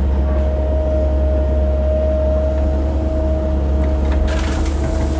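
Cat 308 mini excavator's diesel engine running steadily under a low drone, with a steady high whine over it. A brief rushing noise comes in about four seconds in.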